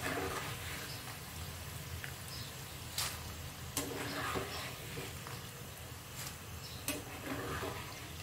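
Nendran banana slices deep-frying in hot oil with a steady sizzle, and a few sharp clinks of a wire-mesh skimmer against the pan as the chips are scooped out.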